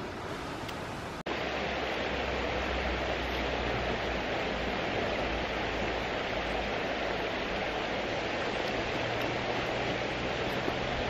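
Steady rushing of a shallow river running over a stony bed. About a second in the sound cuts abruptly to a louder take of the flow, with a low rumble underneath.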